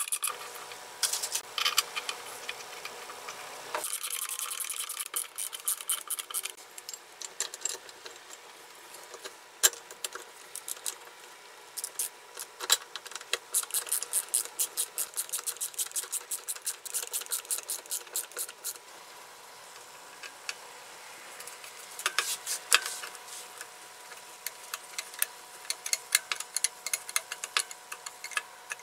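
Hand screwdrivers turning screws into a band saw's aluminium frame: runs of quick small metal clicks and scraping, with a few sharper clicks in between.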